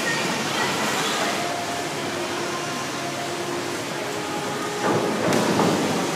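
A diver entering the pool feet first from a springboard, with a splash about five seconds in, over the steady wash of noise in an indoor pool hall.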